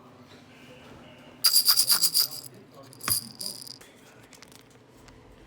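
A jingling rattle, shaken in two bursts: a loud one of about a second starting about one and a half seconds in, and a shorter one at about three seconds.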